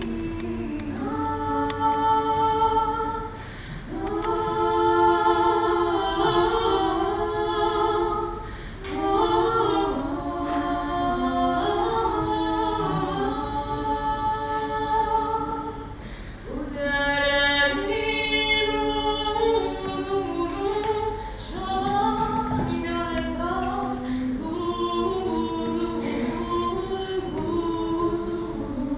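Two women singing a cappella together, in phrases of long held notes separated by short breaths every few seconds.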